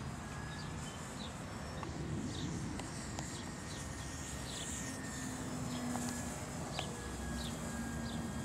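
A bird chirping short falling notes about twice a second, over a low rumble, with the faint steady whine of the electric RC plane's motor coming and going in the background.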